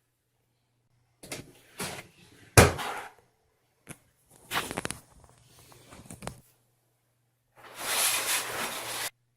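Knocks, bumps and rattles of a light plastic twin-tub portable washing machine being lifted and set down in a bathtub, with one loud sharp knock about two and a half seconds in and a longer scraping rush near the end.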